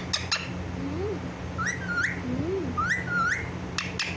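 Talking parrot calling out twice, each call a two-part rising cry like a called word, after a few sharp clicks at the start.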